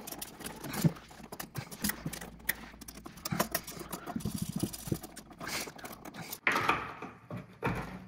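Irregular small metallic clicks and rattles as hand tools work the wires and terminal screws of a three-way toggle switch, with a screwdriver turning a terminal screw.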